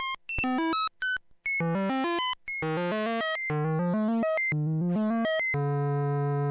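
Dual analog oscillators of a CubuSynth Engine synth module, built on 3340 VCO chips, playing a fast sequence of short bright notes that jump in pitch. About five and a half seconds in, they settle into one steady, buzzy held tone.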